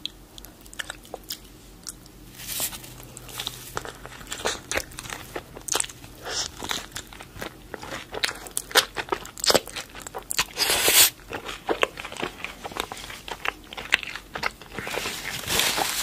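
Close-miked biting and chewing of a crispy taco shell coated in melted nacho cheese: a run of sharp crunches with chewing between them, a few crunches louder than the rest.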